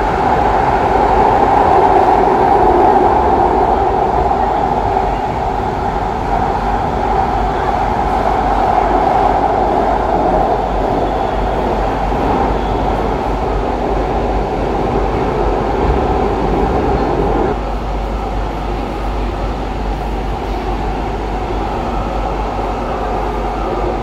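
Interior running noise of a Cologne Stadtbahn light-rail car under way: a steady rumble with a droning hum. About two-thirds of the way through, the drone drops out and the noise gets a little quieter.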